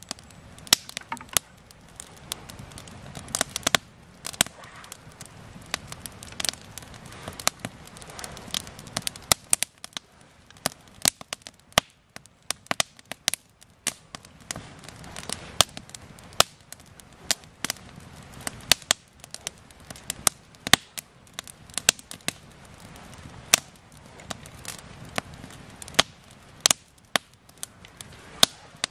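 Campfire of split, dry firewood crackling and popping, with sharp irregular pops a few times each second.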